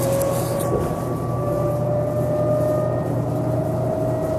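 2007 New Flyer DE40LF diesel-electric hybrid bus running, with a Cummins ISL diesel and an Allison EP40 hybrid drive. A steady low engine hum sits under an electric-drive whine that rises slowly in pitch. The whine breaks off briefly under a second in, then resumes and keeps rising as the bus gains speed.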